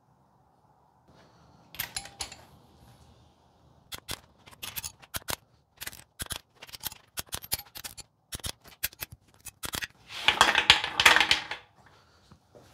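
Torque wrench ratcheting on the case-half nuts of a VW 40 hp air-cooled engine during the final torque to 24 ft-lb. A run of sharp, irregular ratchet clicks is followed by a louder, denser rattle about ten seconds in.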